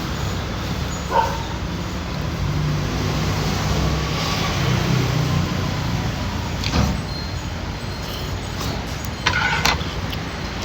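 Road traffic: vehicles running past with a steady low rumble, broken by a few short clinks or clatters about a second in, near seven seconds in and near the end.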